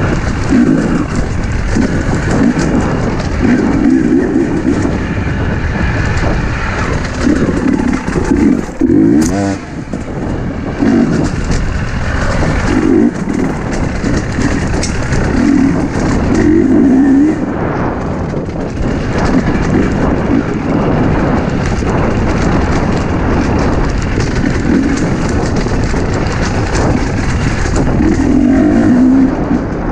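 Husqvarna enduro dirt bike's engine running on a rocky trail, the throttle opening in short bursts every second or two, with a dip and a falling note about nine seconds in. The bike knocks and rattles over the stones throughout.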